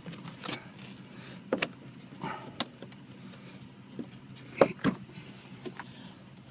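Several knocks and clatters of a boat's hatches and compartment lids being handled, the loudest a double knock about four and a half seconds in, over a steady low hum.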